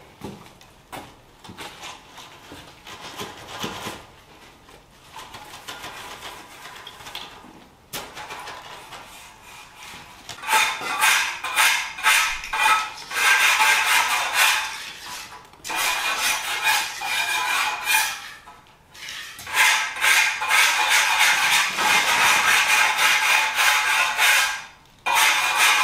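Steel hand trowel scraping across wet concrete in quick repeated strokes with a metallic ring: faint at first, then loud from about ten seconds in, with short pauses.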